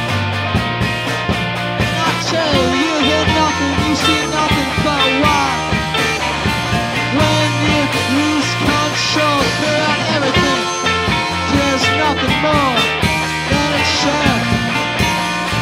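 A garage-rock band playing a song: electric guitars, bass and drums, with a melody line that swoops up and down in pitch.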